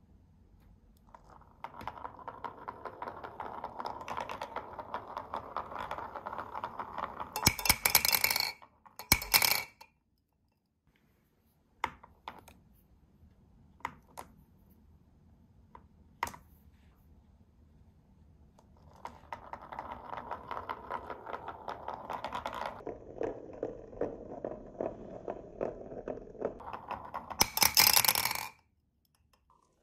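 Glass marbles rolling down a wooden wave-shaped marble-run track, a steady rolling rattle, each run ending in a loud clatter as they drop into a plastic cup. It happens twice, with a few light clicks between the runs.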